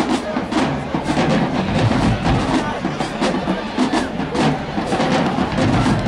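Marching band drumline playing a cadence: a steady beat of sharp drum strokes, roughly three a second, with crowd voices mixed in.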